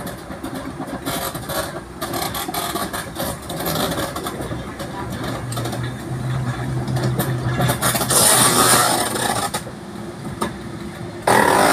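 Class 08 diesel shunter's six-cylinder English Electric engine running as the locomotive rolls slowly toward and past. Its steady hum grows as it nears, with a louder rush of noise about eight seconds in as it draws alongside. Music cuts in abruptly near the end.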